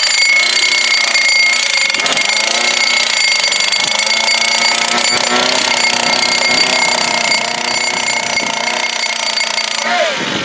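Gas-engine T-post driver from Extreme Power running and rapidly hammering a 6-foot steel T-post into hard ground, with a steady high whine over the engine.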